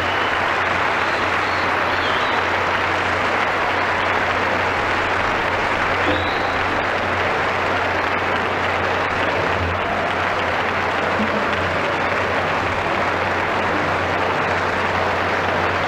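Concert audience applauding steadily, heard through a radio broadcast taped onto cassette.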